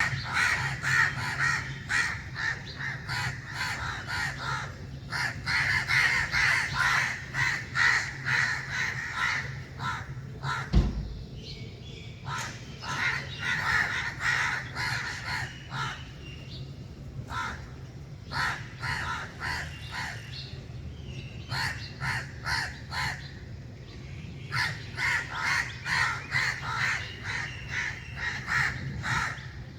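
A flock of crows cawing together, many overlapping caws in quick runs with short lulls, over a steady low hum. A single dull thump about eleven seconds in.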